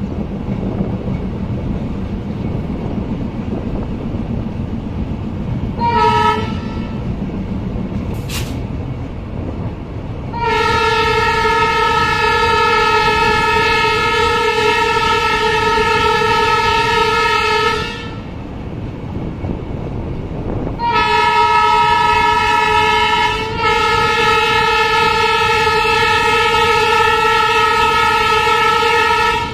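Train running with a steady low rumble while its locomotive's horn sounds: a short blast about six seconds in, then a long blast of about seven seconds, then a longer blast near the end broken once by a brief gap. A sharp click comes about eight seconds in.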